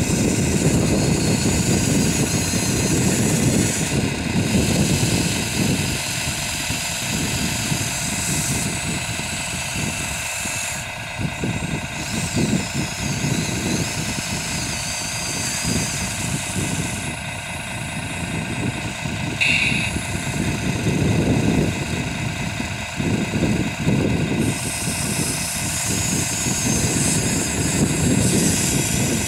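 Electric motors of a radio-controlled model excavator whining as it digs, swings and dumps soil. The high whine stops and starts again with each movement of the arm and turntable, over a steady low rumble.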